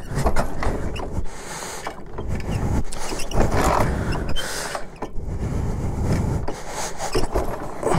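Harley-Davidson V-twin's electric starter cranking the engine in several attempts with short breaks between them, and the engine not catching: the bike won't start.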